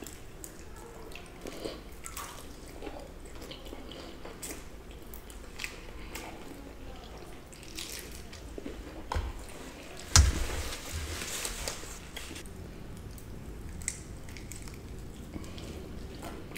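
Close-up eating sounds of crispy fried chicken: small bites and chewing with soft crackles, and a single thump about ten seconds in.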